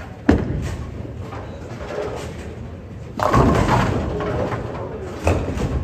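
Bowling alley sounds: a sharp knock just after the start, then a louder crash of bowling pins about three seconds in with a clatter that trails off, and another knock near the end.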